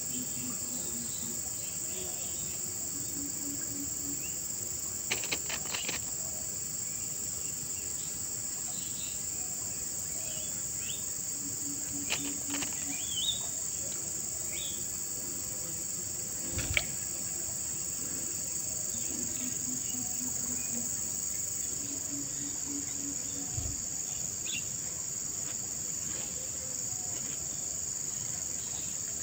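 A steady, high-pitched chorus of insects, with a low pulsing trill of about a second heard several times and a few small chirps and clicks.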